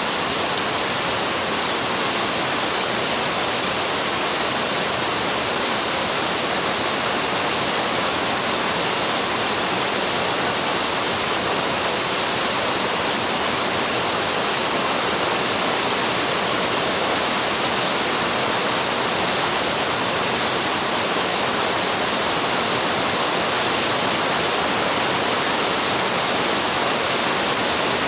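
Rain falling steadily: an even, unchanging hiss with no single drops or thunder standing out.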